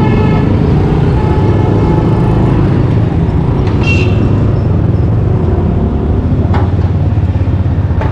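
Steady engine and road rumble of a motorcycle ride through town traffic, with a vehicle horn honking briefly about four seconds in.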